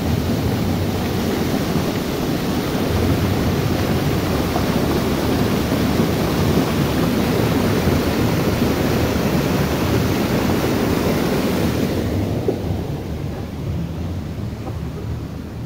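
White water rushing and churning down a small cascade in a stream: a steady, full rush of water. Its upper hiss falls away about three-quarters of the way through, leaving a softer, lower rush.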